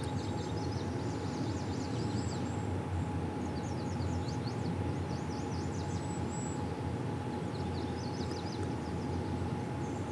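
Steady low rumble of outdoor ambience with a faint constant hum, over which birds chirp in several quick runs of short, high, falling notes.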